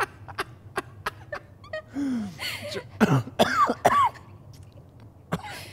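A man coughing and clearing his throat, with short strained vocal sounds, after swallowing balsamic vinegar that has caught in his throat.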